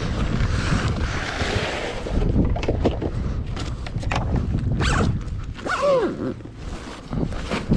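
The zip of a padded surfboard bag being pulled open: a long rasp over the first couple of seconds, then rustling and scuffing as the bag is handled. Wind buffets the microphone underneath.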